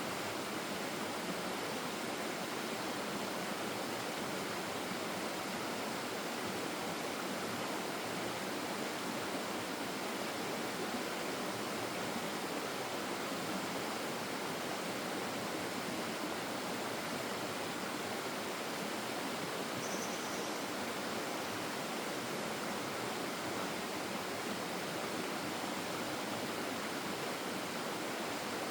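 Stream water rushing steadily over rocks, a constant even wash of noise with no breaks.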